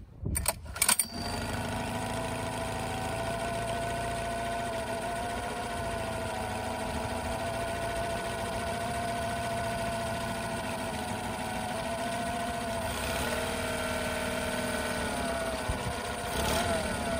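2006 Honda 8 hp four-stroke outboard with its cover off, catching after a few short bursts in the first second and settling into a steady idle. Near the end the throttle is opened and it briefly revs up. It is running in a flush tub to clear salt from its cooling system.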